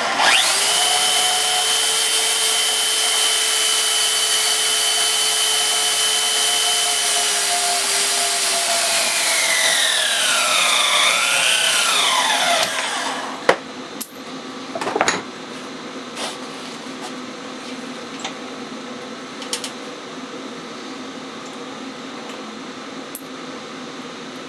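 A power saw cutting 1/8-inch aluminum flat stock, running at a steady pitch for about ten seconds, then spinning down with a falling whine. A few light knocks and clicks follow as the cut pieces are handled.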